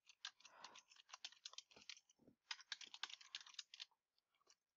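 Faint, rapid keystrokes on a computer keyboard as a line of text is typed, in two quick runs with a short pause about two seconds in.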